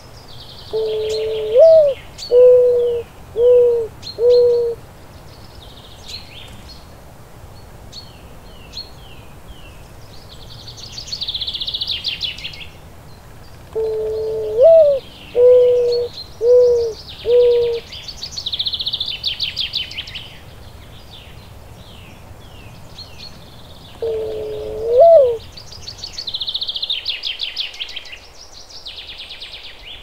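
A pigeon or dove cooing low phrases, usually a longer note flicking upward followed by three short notes, given three times. Between them other birds keep up fast high chirps and rattling trills.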